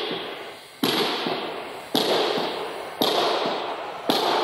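Hammer blows struck about once a second, five in a row. Each is a sharp knock followed by a long echo dying away, as when grommets are hammered into a tarp.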